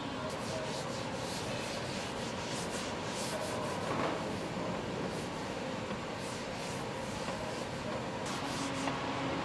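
Hand rubbing strokes on a wood veneer panel, a series of short hissy swishes over a steady workshop hum.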